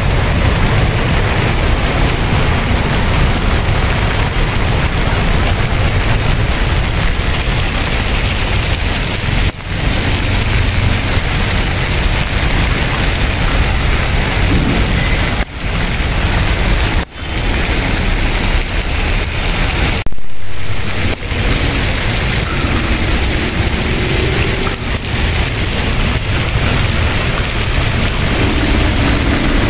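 Steady loud rush of a river in monsoon flood, its swollen water flowing fast, mixed with rain and a low rumble on the microphone. The noise drops out briefly a few times.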